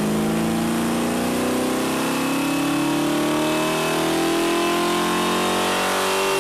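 Ford 460 big-block V8 running a pull on an engine dyno, its pitch climbing slowly and steadily as the revs rise. This is a test pull to check the air-fuel ratio after the front carburetor bowl's metering needle was opened one jet size.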